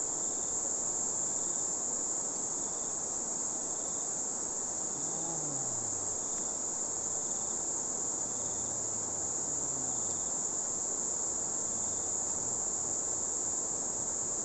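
Steady, high-pitched drone of insects, with a fainter chirp repeating about every 0.7 s, over the rush of a fast-flowing river.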